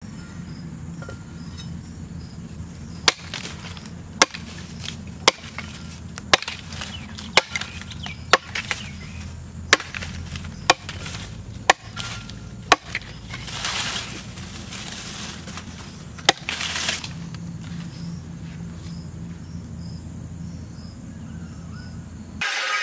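A heavy steel knife forged from a disc-plough blade chopping into a wooden stick on a log: sharp chops about once a second, a dozen in all, then a couple of brief crackling rustles and one last chop. Right at the end an angle grinder starts cutting steel.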